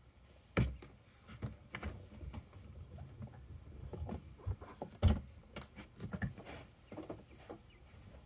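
Quail moving about a wire-floored cage: irregular small taps, scuffs and pecks, with two louder knocks, about half a second in and about five seconds in. No calls.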